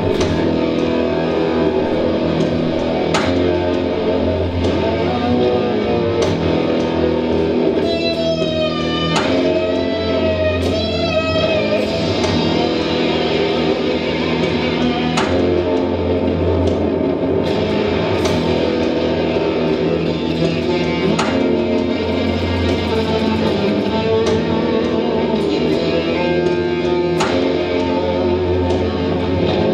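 Solo improvisation on an amplified Stratocaster-style electric guitar: sustained, ringing chords and picked notes. Wavering, bent high notes come about eight to eleven seconds in.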